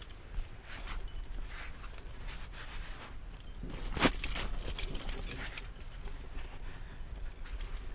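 Close-up handling noise from a climber on a rock crack: jacket and body rustling and scraping against the rock, with carabiners and gear on the harness clinking. A sharp knock about four seconds in, then a couple of clicks a second later.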